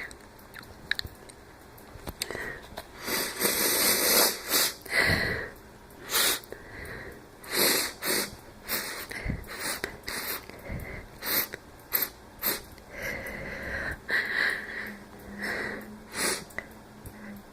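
A person sniffling dry and allergy-like, again and again, in short sharp sniffs, with wheezy, laboured breaths in between.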